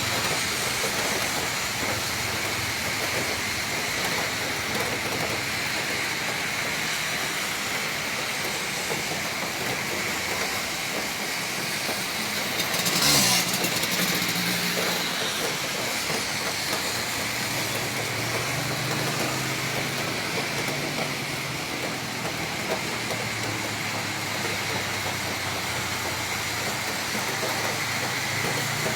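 Heavy rain falling steadily as an even hiss, with a low hum of traffic coming and going underneath and one short louder rush about halfway through.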